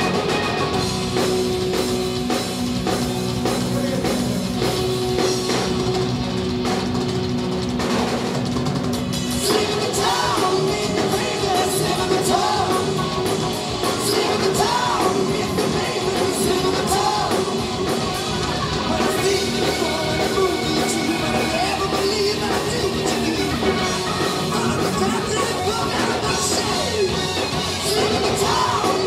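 Live hard rock band playing loud: distorted electric guitars, bass guitar and drum kit. A male lead vocal sings over it from about ten seconds in.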